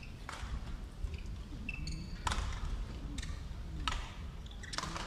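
Badminton rally: a shuttlecock is struck back and forth by rackets, about six sharp hits a second or so apart, over a low rumble from the arena crowd. A brief high squeak comes about two seconds in.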